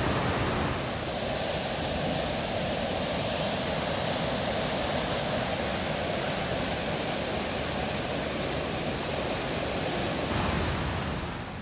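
Storm-swollen river in flood, brown water rushing through rapids in a steady, dense roar of turbulent water. It fades out near the end.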